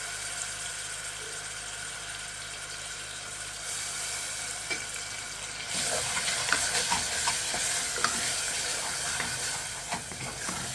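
Onions frying in hot oil, a steady sizzle. From about halfway it gets louder, with a run of clicks and scrapes as they are stirred in the pan.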